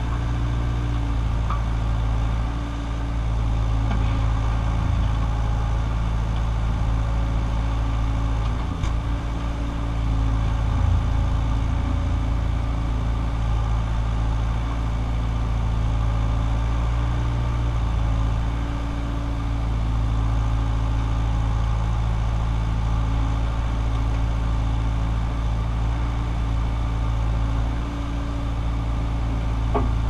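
Case CX60C excavator's diesel engine running steadily while its boom and bucket work the soil.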